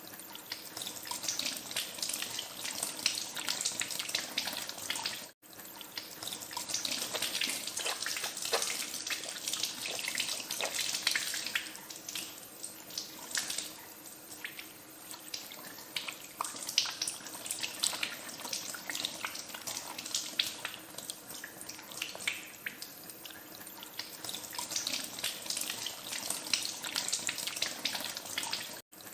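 Tap water running into a sink and splashing unevenly as hands are washed under the stream. It cuts out for an instant twice.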